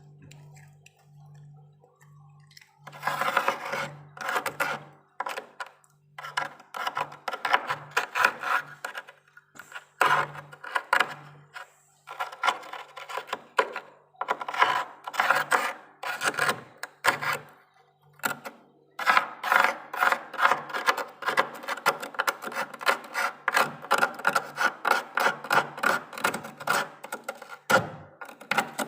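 A spoon scraping frost in runs of quick, rough strokes, starting about three seconds in, with a couple of short pauses.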